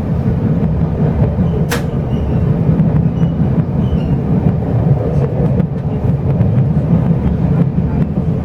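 Chu-Kuang Express passenger carriage running along the line, heard from inside as a steady, loud rumble of wheels on rails. A single sharp click sounds about two seconds in.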